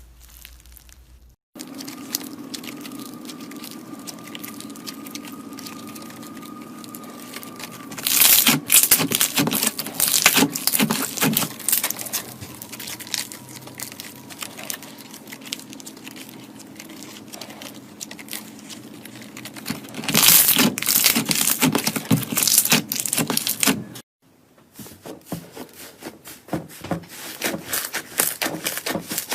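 Hands working slime, squishing and pressing it with a dense crackling and popping, louder in stretches about 8 and 20 seconds in.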